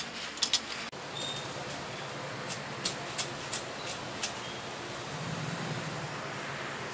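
Light, scattered metallic clicks and taps from the stainless steel tubes of a pipe-frame salon chair being handled and fitted together, over a steady background hiss.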